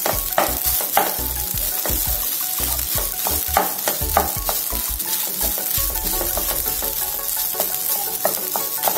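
Wooden spatula stirring and breaking up crumbly ground-rice dough in a pan of hot sesame oil: frequent short scrapes and taps against the pan over a steady sizzle, as the dough is worked into dry crumbs.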